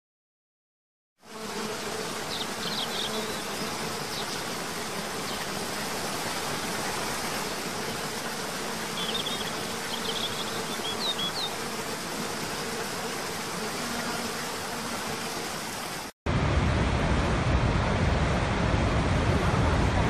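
Steady rush of a waterfall with a steady buzz and a few short high bird chirps, starting about a second in. Near the end it cuts to a louder, deeper rush of a large waterfall.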